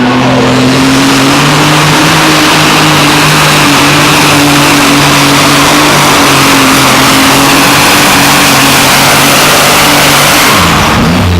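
Competition pulling tractor engine at full throttle under load, holding a steady high pitch with a wide rush of exhaust noise, then dropping away shortly before the end.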